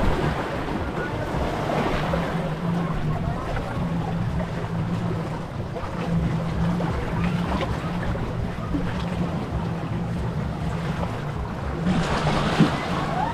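Surf washing on a beach with wind on the microphone, over a steady low hum that fades in and out.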